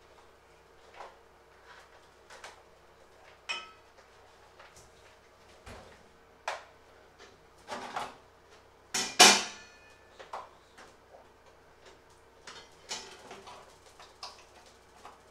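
Scattered clinks and knocks of metal kitchenware being handled at the stove, a stainless steel pot and a metal grater among them, with one loud ringing metal clang about nine seconds in.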